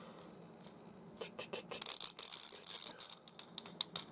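Small metal parts of a baitcasting reel being handled during disassembly: a few light clicks, then about a second of dense high scraping and rattling in the middle, and several sharp clicks near the end.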